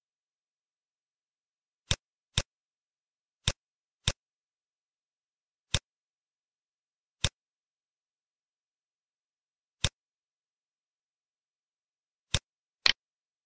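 Computer mouse clicks: single sharp clicks at irregular intervals, with a quick double click near the end, over dead silence.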